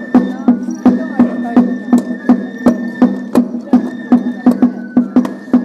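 Shishimai (lion dance) accompaniment: a drum struck in a steady beat of about three strokes a second, with a high held melody line above it, typical of the taiko and bamboo flute (fue) that accompany this kind of lion dance.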